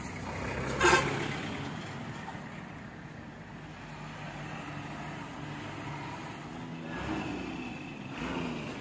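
Heavy trucks' diesel engines running steadily on the road, with a short, loud sound about a second in.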